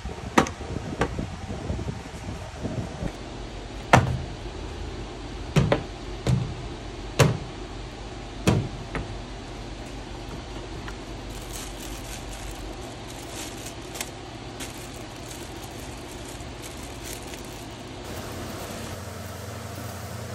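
Workshop handling of engine parts: about seven sharp knocks and clunks over the first nine seconds, then light scratching and rustling, over a steady low hum.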